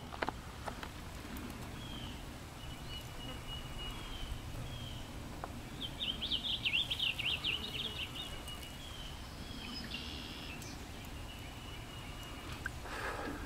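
Songbirds singing outdoors: a short high chirp repeated every second or so, and about six seconds in a louder, rapid warbling phrase, over a low steady rumble of wind and ambient noise. There is a brief scuffing sound near the end.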